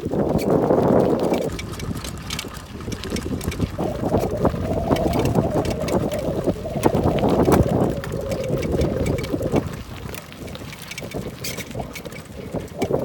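Wind buffeting the microphone, a rumbling noise that swells and fades over the seconds.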